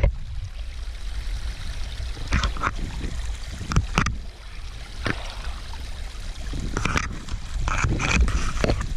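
Footsteps on a rocky mountain trail: irregular scrapes and crunches about once a second, over a steady low rumble of wind on the microphone.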